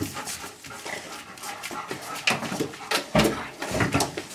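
A dog's breathing and snuffling close to the microphone, with a couple of heavy bumps about three seconds in.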